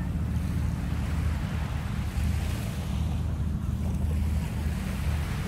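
Wind buffeting the microphone: a steady low rumble with a fainter hiss of open-air noise over it.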